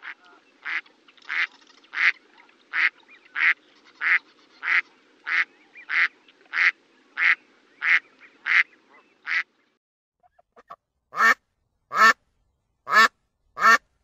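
Duck quacking: a steady run of about fifteen evenly spaced quacks, roughly one and a half a second. After a short pause, a second series of four louder quacks follows, spaced a little wider apart.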